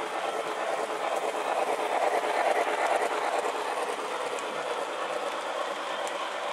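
Model Santa Fe 4-8-4 steam locomotive and its cars running on toy train track: a steady rattle and rumble of wheels on the rails, swelling to its loudest about two to three seconds in as the train passes close by.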